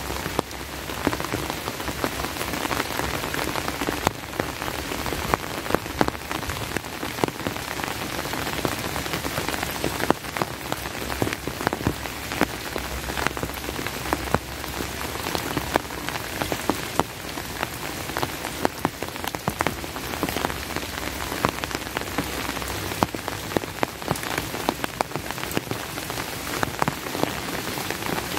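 Steady rain falling, with frequent sharp taps of individual drops close by.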